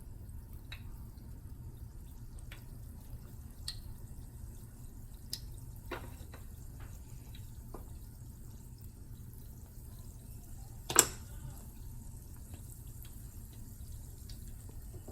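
Biscuit-dough donuts frying in hot oil, with scattered small pops and crackles over a steady low hum. There is one louder sharp pop or knock about eleven seconds in.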